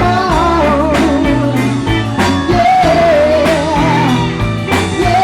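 Live blues band playing a slow song: steady bass notes and regular drum hits under long, wavering wordless vocal notes.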